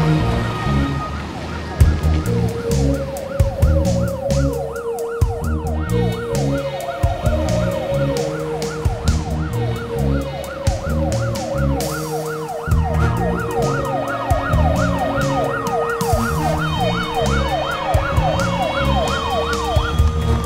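Siren in a fast, repeated up-and-down yelp, changing to a slower rising wail near the end, over background music with a steady drum beat.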